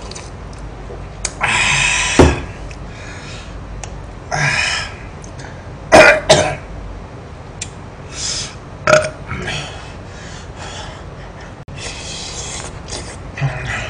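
A man's harsh, breathy exhalations and burp-like grunts come in about half a dozen short separate bursts, the loudest about six seconds in. They are his reaction to very spicy tteokbokki and hot water burning his stomach.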